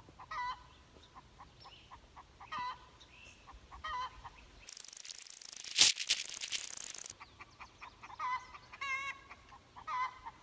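Chickens clucking in short calls, again and again. About five seconds in comes a hiss lasting two to three seconds, with one sharp crack in the middle, the loudest sound.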